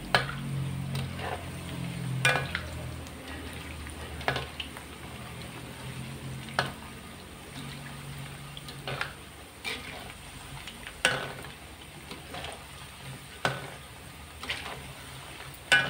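Batter-coated quail eggs deep-frying in hot oil with a steady sizzle. A metal slotted ladle stirs them and clinks against the metal wok every second or two.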